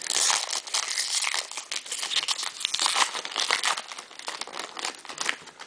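Foil wrapper of a 2010 Bowman Chrome baseball card pack crinkling as it is torn open by hand, a dense crackle that eases off near the end.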